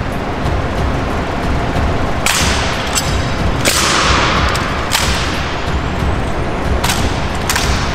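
Honor guard's M1 Garand rifle drill: about six sharp cracks as the rifles are slapped, caught and grounded on the floor, with stamping boots, each ringing on in the marble hall. A steady low rumble lies underneath.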